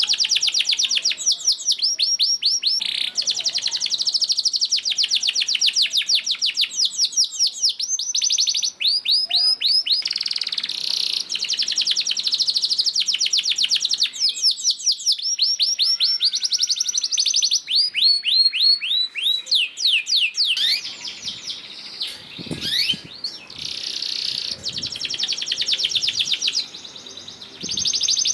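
Canary singing a long, continuous song of rapid trills: fast runs of repeated high notes that change phrase every few seconds with only brief breaks, the kind of long rolling song kept as a trigger to get other canaries singing.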